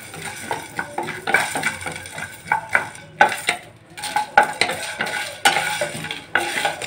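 Wooden spatula stirring whole spices as they dry-roast in a metal frying pan: quick, irregular scrapes, with the seeds rattling against the pan. Dried red chillies are tossed in partway.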